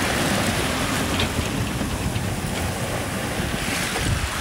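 Wind buffeting the microphone over the rush of waves along the hull of a sailboat under sail. The rush of water swells at the start and again near the end.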